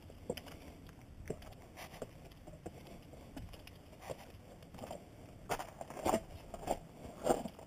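Footsteps crunching on a loose gravel and rock trail, faint at first and then a steady walking stride of crunches in the second half.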